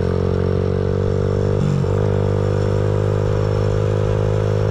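Engine of a 1938 Chevrolet coupe dirt-track modified race car running steadily under way, with a brief change in the engine note about a second and a half in.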